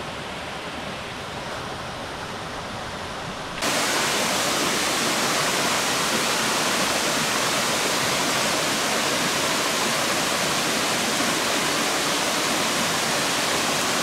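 Waterfall and rocky mountain stream rushing, a steady noise of falling water. About three and a half seconds in it jumps suddenly louder and brighter, the close sound of the falls.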